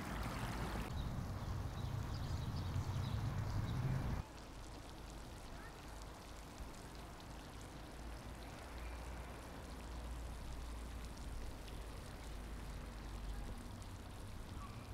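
Steady outdoor background noise: a hiss with a low hum, which drops suddenly to a quieter even hiss about four seconds in.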